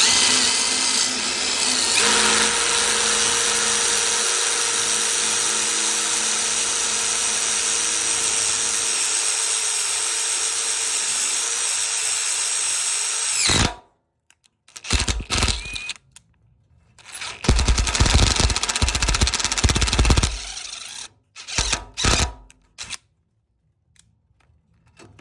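Power drill running an M6x1 self-tapping bit, a long steady run with a held whine that winds down quickly about halfway through. After a short pause come three shorter bursts of drilling, then quieter brief runs near the end.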